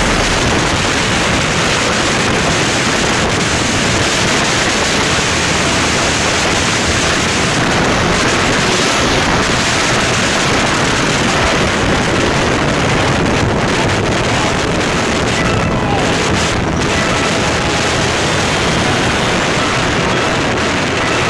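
Steady, loud wind noise rushing over the microphone of a camera on a motorcycle riding at speed, drowning out the engine.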